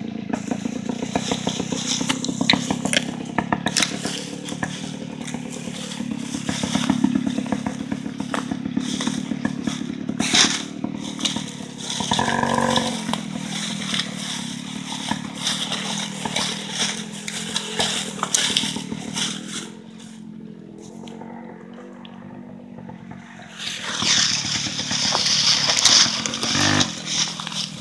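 Rokon two-wheel-drive trail motorcycle's small engine running under load, rising and falling with the throttle as it drags a deer carcass through dry leaves. The engine fades near the end, and loud crunching of dry leaves underfoot takes over.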